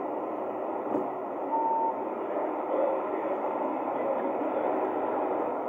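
Volvo FE kerbsider bin lorry's diesel engine running steadily as the lorry manoeuvres backwards, with one short beep from its reversing alarm about a second and a half in.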